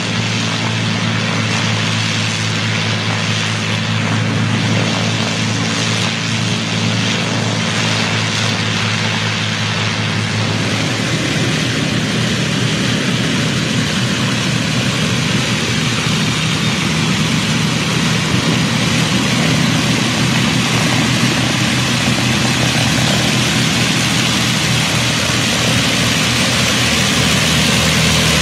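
The Avro Lancaster's four Rolls-Royce Merlin V12 engines running at taxi power, with the propellers giving a steady, even drone. About ten seconds in, the even tone breaks up into a rougher, noisier sound, and it grows slowly louder toward the end.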